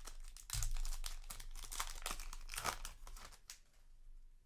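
Foil booster-pack wrapper crinkling and tearing as the pack is opened, a run of rustling bursts with a low thump about half a second in, dying down about three and a half seconds in.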